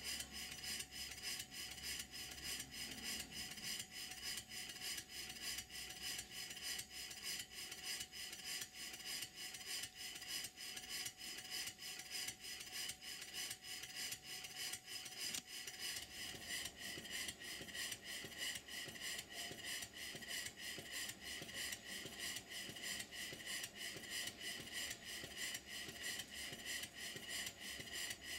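Stuart Models "James Coombes" vertical single-cylinder model steam engine running steadily on compressed air, a regular rhythm of hissing exhaust beats with light mechanical clatter. It is freshly rebuilt and running sweetly.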